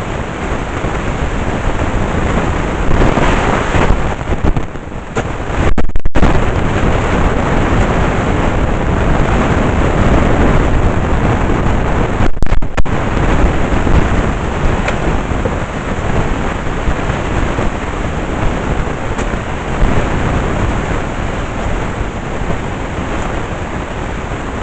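Vacuum cleaner running with a steady rushing noise, cutting out for an instant twice.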